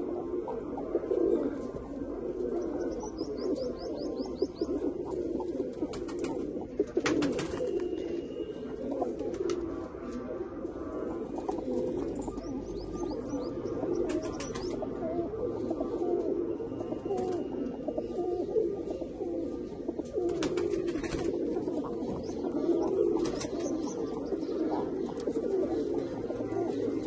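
Several domestic pigeons cooing continuously together, with occasional sharp clicks.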